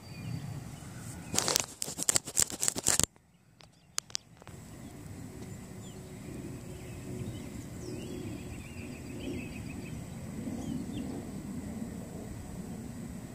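Rapid knocks and clicks of the handheld camera being moved and handled for under two seconds, then a sudden drop-out of sound. After it, a steady low outdoor background with faint short chirps.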